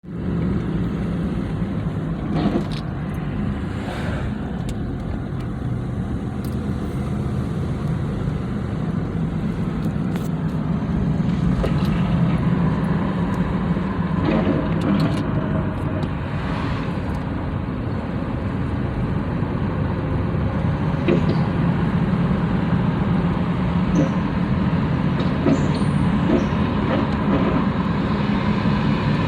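1999 Dodge Durango 4x4 running, a steady engine and drivetrain noise with a few short knocks along the way. It carries the noise the owner hears from somewhere in the front end when he lets off the gas, cause not yet known.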